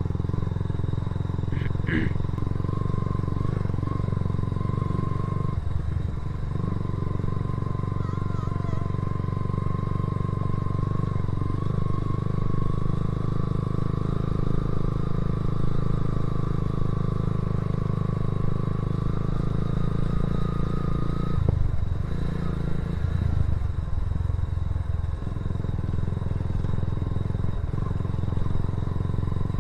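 Motorcycle engine running steadily while riding, a continuous low drone with a faint high whine over it; the engine note eases briefly about six seconds in and again for a few seconds past the twenty-second mark.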